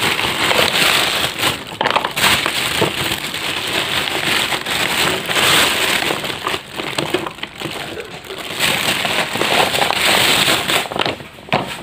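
Plastic packaging crinkling and rustling close up, with many small crackles, as items are pulled out of a wrapped bundle.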